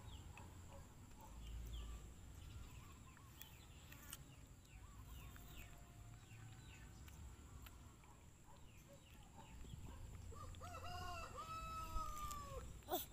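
A rooster crowing once near the end, a drawn-out call of several notes with the last held long and falling away. Faint short bird chirps run under it.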